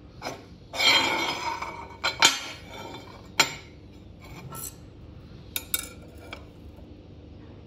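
Steel angle iron handled on a steel workbench: a loud scrape of metal sliding on metal about a second in, then a series of sharp metallic clinks as the pieces and a steel engineer's square are set down and butted together, the last few lighter.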